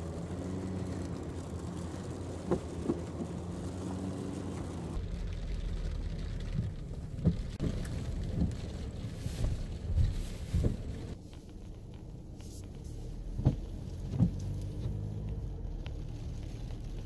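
Cabin sound of a SsangYong Rexton Sports Khan pickup on the move: a steady engine and road hum, with scattered sharp taps. About five seconds in, the hum changes abruptly to a rougher, noisier tone.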